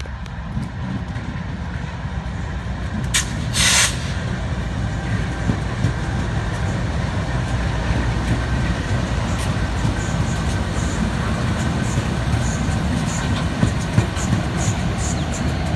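Pacific National freight locomotives (TT and NR class diesel-electrics) passing close by: a steady low engine rumble that builds as they go past. There is a short loud hiss about three and a half seconds in, and sharp clicks come more often in the last few seconds.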